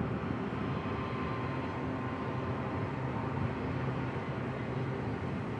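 Union Pacific freight train rolling past: a steady rumble with a low, even diesel drone under it.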